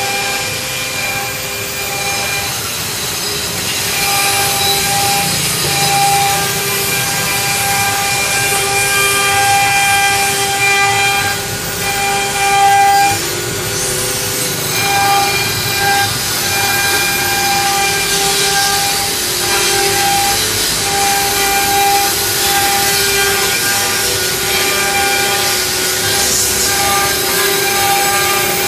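Multi-spindle CNC engraving router cutting: the spindles give a steady high whine over a rough, continuous cutting noise, the pitch dipping slightly now and then under load.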